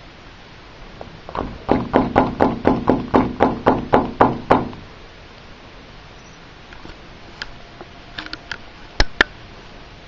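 A quick run of about a dozen sharp knocks, about four a second, lasting some three seconds. A few faint clicks follow, then two sharp clicks near the end.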